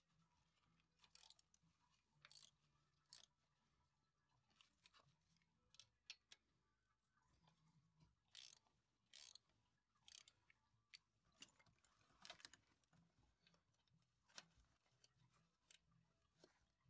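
Faint ratchet wrench clicking in short irregular runs as it backs the rocker shaft bolts off a few turns at a time, with the odd metal tap between.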